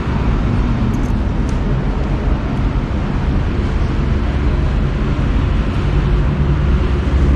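Steady low rumble of road traffic, with no pitch change or break.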